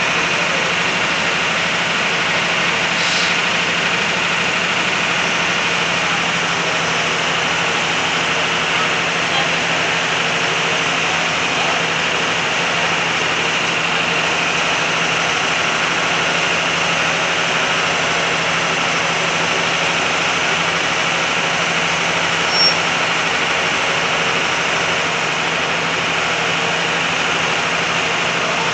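Vehicle engines idling steadily under a constant hiss of street noise, with one brief sharp sound about 23 seconds in.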